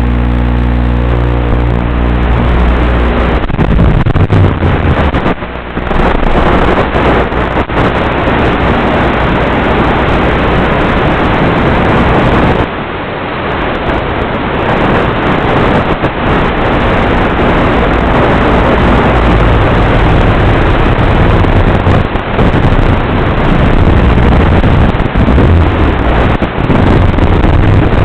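Onboard audio from an E-flite UMX F-27 micro flying wing in flight: a small electric motor and propeller whine with a steady pitch at the start, giving way about three seconds in to a loud, constant rush of airflow and motor noise, with a couple of brief dips.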